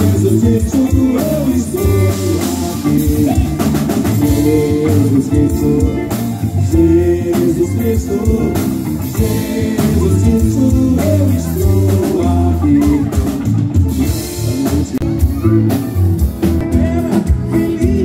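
Live pop band playing loudly, with electric guitars and a drum kit keeping a steady beat, and male vocals over the band.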